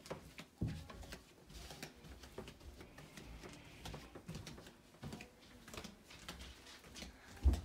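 Footsteps going down a flight of indoor stairs: soft, uneven thumps about once a second, with a louder thump near the end.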